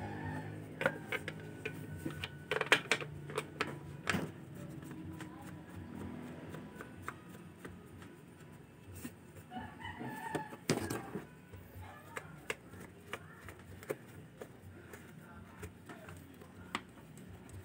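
Irregular light metallic clicks and taps of bolts and engine parts being handled as the covers go back on a Honda Click 125 scooter engine after valve clearance adjustment. The clicks come in quick clusters, thickest in the first few seconds and again around ten seconds in. The engine is not running.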